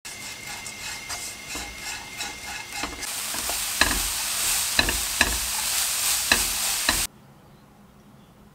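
Small dried anchovies stir-frying in a nonstick wok, with a spatula scraping and knocking against the pan through a light sizzle. The sizzle grows louder about three seconds in, with several sharp spatula knocks, then cuts off abruptly about seven seconds in.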